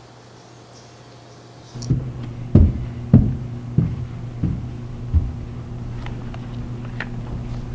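A series of six low thuds, about two-thirds of a second apart, over a steady low hum that starts abruptly about two seconds in.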